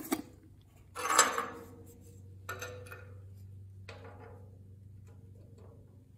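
Loose steel gusset plates knocking and clanking against a steel 1977 Corvette frame as they are fitted by hand: a sharp knock at the start, a louder ringing clank about a second in, then lighter taps about two and a half and four seconds in, over a low steady hum.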